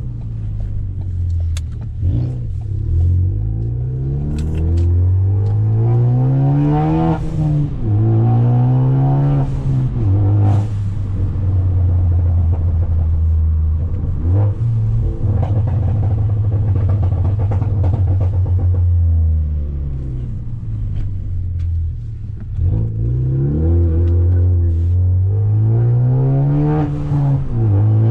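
Ford Focus ST's turbocharged four-cylinder, on a straight-piped catless downpipe and Flowmaster exhaust, revving up through the gears with a break in pitch at each shift. Sharp cracks come around several of the shifts. It runs at a steady cruise in the middle, then pulls through the gears again near the end.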